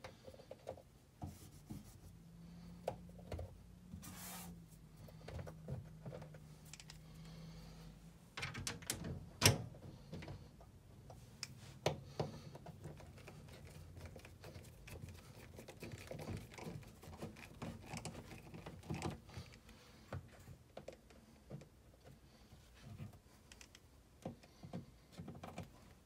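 Faint scattered clicks, taps and scrapes of screws being fitted and driven into a white wall panel by hand. A low steady hum runs from about two to eight seconds in.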